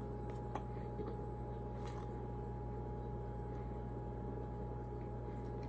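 Quiet room tone: a steady low electrical hum with a thin constant tone above it, and a few faint soft clicks.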